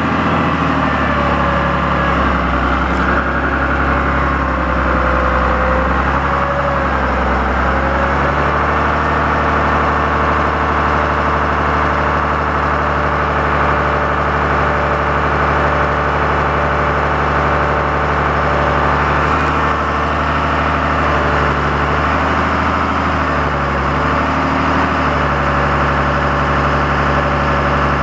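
Cummins ISB 5.9-litre inline-six diesel engine of a Ford F800 truck idling steadily, with slight shifts in pitch now and then.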